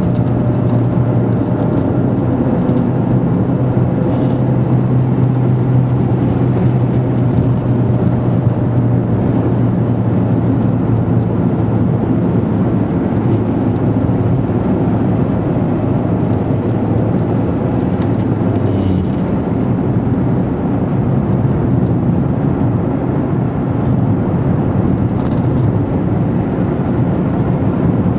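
Car driving, heard from inside the cabin: steady road and tyre noise under a low engine hum that weakens about two-thirds of the way through.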